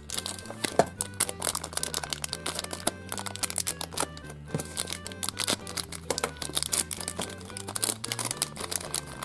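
Packaging of a Hairdorables Pets surprise box crinkling and rustling in many short sharp clicks as its first compartment is opened, over steady background music.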